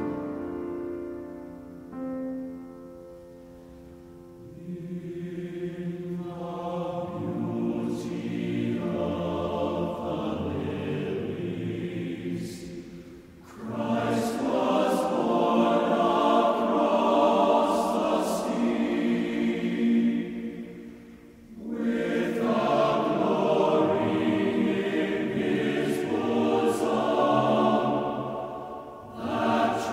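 Background music of sustained choir-like voices, in long phrases that swell and fade away briefly three times.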